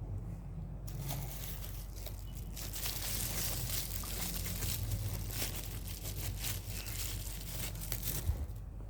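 Packaging crinkling and rustling as it is handled and opened, a dense run of crackles that starts about a second in and stops just before the end, over a steady low hum.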